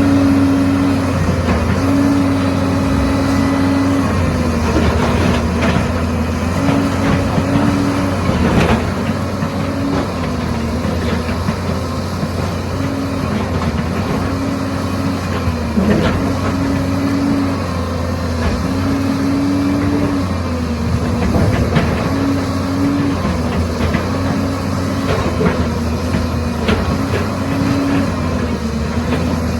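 Heavy diesel excavator running steadily, with a higher whine that comes and goes every second or two as it works and a few sharp knocks.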